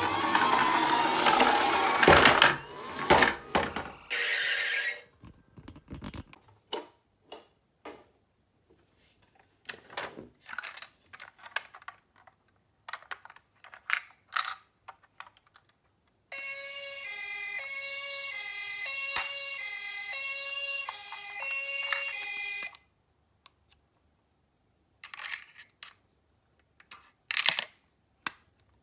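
A toy ambulance's electronic two-tone siren, stepping back and forth between two pitches for about six seconds in the middle. Around it are clattering clicks and rattles of the toy cars being handled and rolling, and a louder jumble with a falling tone in the first few seconds.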